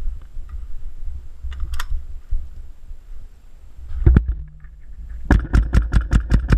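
Airsoft rifle firing: a couple of shots about four seconds in, then a rapid string of about eight shots near the end, around seven a second.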